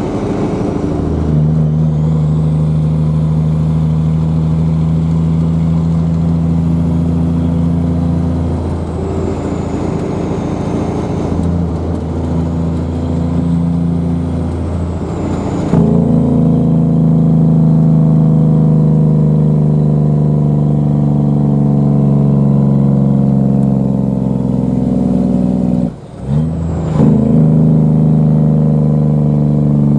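Diesel engine of a Peterbilt 359 dump truck running under load while driving, its note slowly climbing. Near the end it briefly drops out and picks up again, as at a gear shift.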